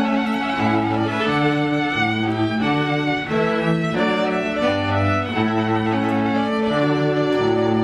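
Instrumental string music, a melody over a bass line that moves from note to note about once or twice a second, played as the processional while the guests stand.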